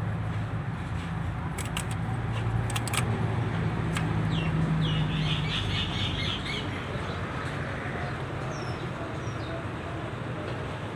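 A 660 cc engine idling steadily with a misfire, with a few sharp ticks about two to three seconds in. Birds chirp over it around the middle and again near the end.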